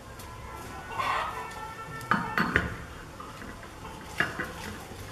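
Sharp metallic clanks from an improvised mortar being handled and readied for firing. There is a quick cluster of three clanks about two seconds in and a single one near the end.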